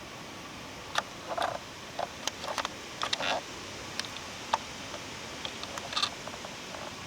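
Scattered clicks and short crackles from a handheld camera being handled and from steps through twigs and leaf litter, over a steady hiss of light wind.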